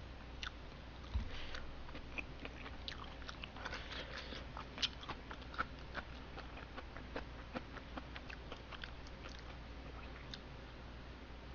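Close-miked eating of rice cake soup: a spoon clicking against a bowl, sipping and chewing, heard as many small scattered clicks, with a dull thump about a second in.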